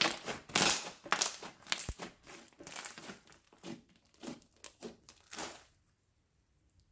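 Hands squishing and pressing slime: a run of irregular crackling, squelching pops lasting about six seconds, with a soft thump about two seconds in.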